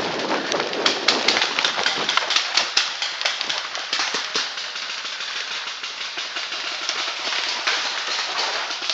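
Paintball markers firing: many sharp, overlapping pops, thickest over the first four seconds and then thinning out.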